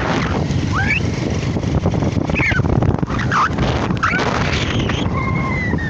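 Birds calling in short rising and falling whistled chirps, with a longer falling whistle near the end, over a steady low rumble.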